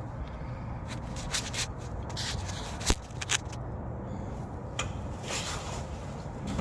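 Tools scraping and clicking against the metal of a car's front suspension, with a few sharp clicks and a clack about three seconds in, as the ball joint is worked loose from the A-frame.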